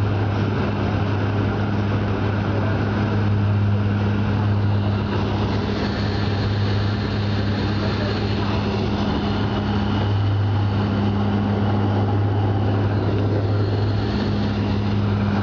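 Airliner cabin noise on approach: a steady low propeller drone with a second tone above it, over an even hiss of airflow. The upper tone briefly drops out about two-thirds of the way through.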